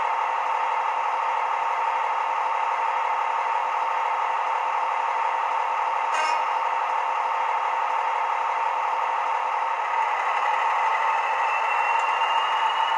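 Sound-decoder recording of a Class 43 Warship diesel's engines idling steadily, played through a model locomotive's small speaker, with a single click about six seconds in. Near the end a thin rising whistle comes in over the engine: the turbocharger whistle as the engine begins to rev.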